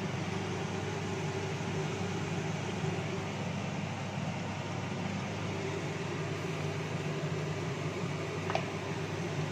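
Steady mechanical hum and rumble with a faint higher tone running through it, and a faint tick about eight and a half seconds in.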